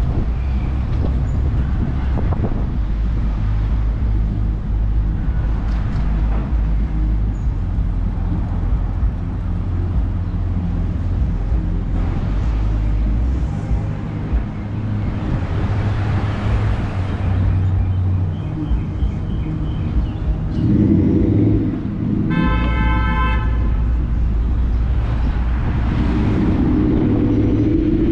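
Car and road noise from inside a moving car in city traffic: a steady low rumble, with a horn toot lasting about a second and a half about two-thirds of the way in.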